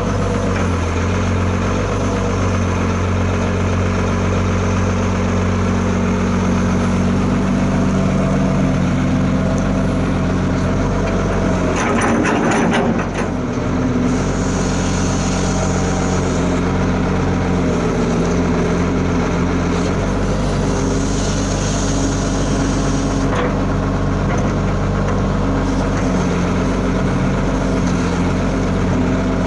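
Diesel engine of an old Sumitomo 20-ton hydraulic excavator running steadily, with a short clatter of knocks about twelve seconds in.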